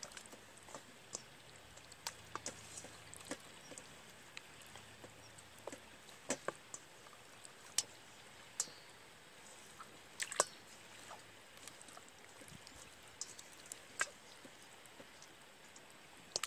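Raw chicken pieces being rubbed and turned by hand in marinade in a stainless steel bowl: faint wet squelching with scattered sharp clicks and taps at irregular moments.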